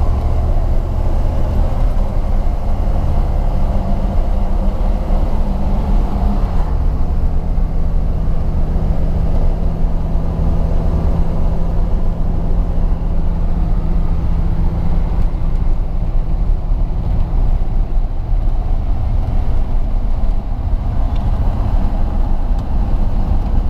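The 350 cubic inch V8 of a 1947 Chevrolet 3100 pickup running steadily under way, heard from inside the cab along with road noise. About six and a half seconds in, the engine note drops a step and then holds steady.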